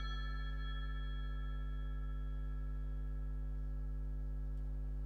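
Altar bell ringing at the elevation of the host, its several clear tones slowly dying away over a steady low hum.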